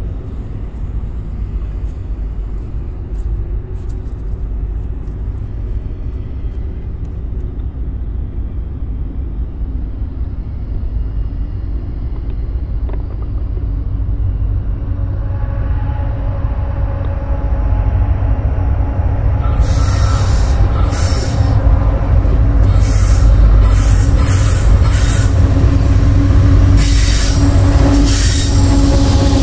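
Freight train's diesel locomotives, Union Pacific and Canadian Pacific units, approaching: a low rumble and engine drone building steadily as they draw near. From about twenty seconds in a rapid clatter joins it as the lead units come close.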